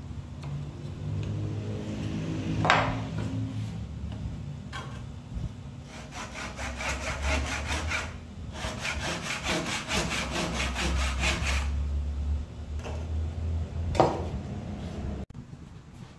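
Hand backsaw cutting into a wooden rail in fast, even strokes, in two runs with a short pause between, sawing the sides of a notch for a joint. Before the sawing there is some scraping and a sharp knock, and another knock comes after it.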